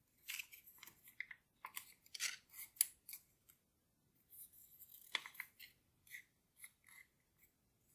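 Thin origami paper crinkling and crackling as it is folded and creased by hand, in quick short crackles with a brief pause about halfway through.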